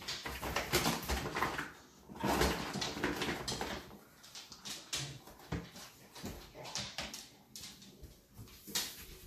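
A dog whining, with rustling and light knocks as a toddler handles a bag of dog food. The rustling comes in two longer stretches in the first few seconds, followed by scattered short clicks.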